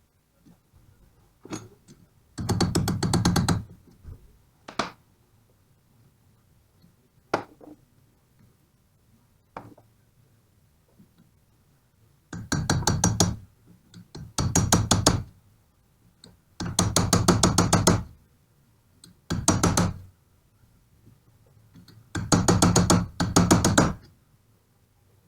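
Pneumatic impact wrench hammering in short bursts of about a second each on the alternator pulley nut: one burst a couple of seconds in, then a run of five or six bursts in the second half. Single knocks of tools being handled come in between.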